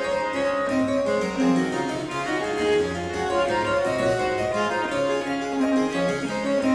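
Harpsichord music, a quick flow of plucked notes at a steady level.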